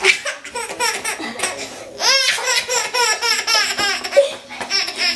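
A baby laughing hard in quick repeated bursts, with high-pitched squeals, the bursts coming fast from about two seconds in.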